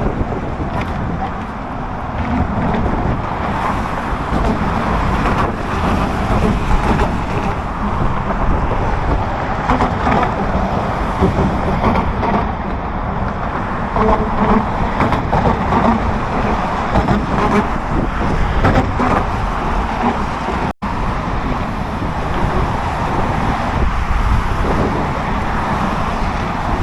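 Strong wind buffeting the microphone with a steady roar of road traffic, in gusts throughout. The sound drops out completely for an instant about 21 seconds in.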